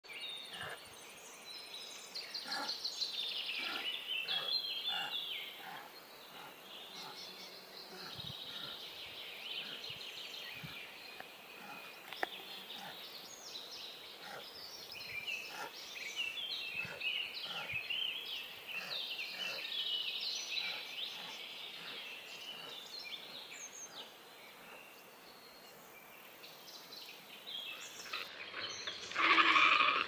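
A background chorus of many birds, with overlapping high chirps, whistles and warbles. A louder burst of rapid, harsher calls comes about a second before the end.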